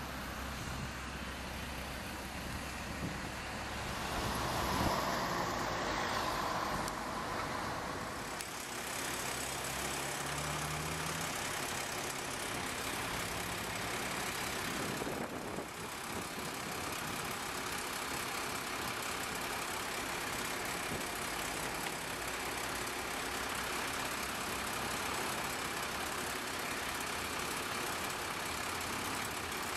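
Heavy diesel engines of a mobile crane and heavy-haulage trucks running steadily, with a brief louder swell about five seconds in.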